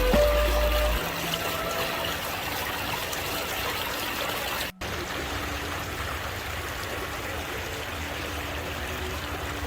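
Running, trickling water of an outdoor spa pool, a steady rush that cuts out for an instant just under halfway through.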